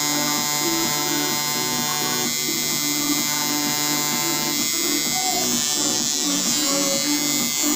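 Tattoo machine buzzing steadily as its needle works lines into an EVA foam practice sheet.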